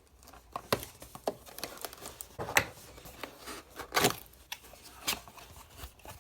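Cardboard product box being opened by hand: the tape seal is cut, then the packaging rustles and scrapes, with irregular clicks and knocks.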